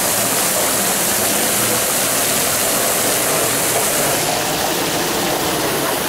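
Water fountain jets spraying and splashing into the basin close by: a steady rushing hiss that eases about four seconds in.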